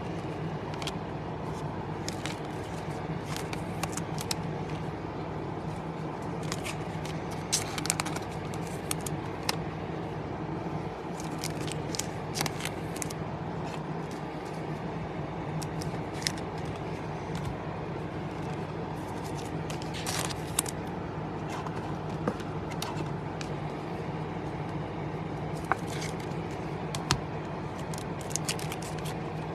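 Topps Chrome baseball cards being shuffled and sorted by hand, with irregular sharp clicks and light scraping as the stiff cards slide and tap against each other, over a steady low hum.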